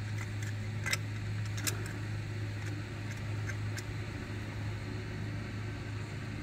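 A steady low mechanical hum, with two light clicks about a second in and just under a second apart.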